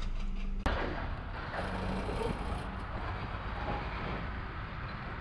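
Steady road and wind noise of a moving car as the microphone goes out of the side window, with one sharp knock about half a second in.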